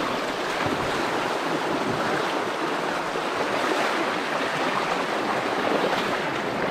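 Flowing water of a small trout creek, rushing steadily.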